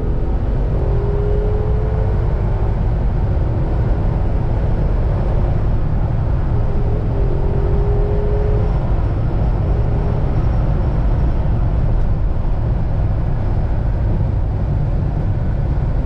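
In-cabin road noise of a Jeep Wrangler JL at highway speed, accelerating past 70 mph and then easing off: a steady loud rumble of engine, tyres and wind, with a faint tone that rises in pitch during the first half. There is no whistle from the roof-mounted LED light bar, whose mounting tabs have been reshaped to cure it.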